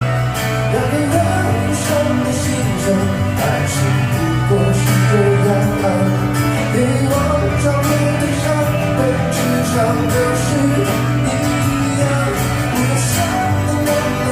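A song: a singing voice over instruments, with a steady low bass and regular drum hits.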